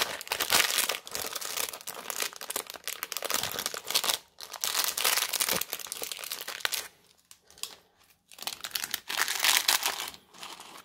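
Thin plastic packet of Lego pieces crinkling as it is handled and pulled open, in uneven stretches with a pause about seven seconds in.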